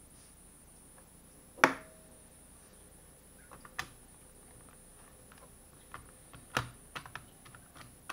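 Scattered sharp clicks and small taps of a small screwdriver and tiny screws against a laptop's plastic case as the hard-drive screws are undone. The loudest clicks come about one and a half seconds in and again about six and a half seconds in, with a run of lighter ticks around the second one.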